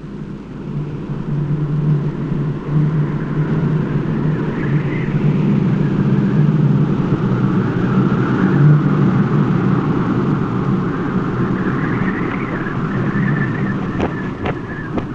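Strong wind blowing through a snowstorm, swelling and easing, with a low rumble under a wavering high whistle. A few sharp clicks come near the end.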